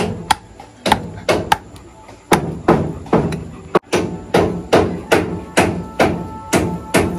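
A machete chopping raw pork on a wooden board, with steady chops about three a second.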